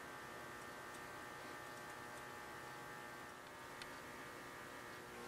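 Faint steady hum with a low hiss, broken by a few faint ticks.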